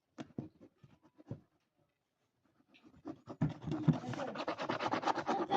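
A few light clicks and taps, then from about three seconds in a rapid scratching of about ten strokes a second as the seal on the packaging is cut through.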